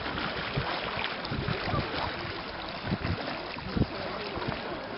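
Wind buffeting the microphone in irregular low thumps over the splashing of swimmers' strokes in cold river water.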